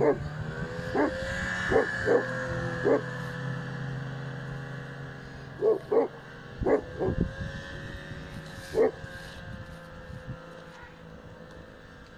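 A dog barking in short sharp yelps, about ten in all in small clusters, over the steady engine of a snowmobile driving away and slowly fading.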